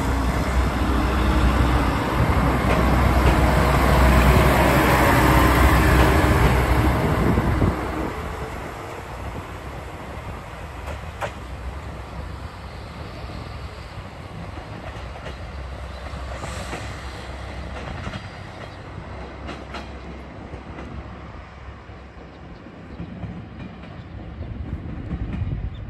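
A train running, loud for the first eight seconds or so, then dropping suddenly to a quieter, steady sound with a few sharp clicks.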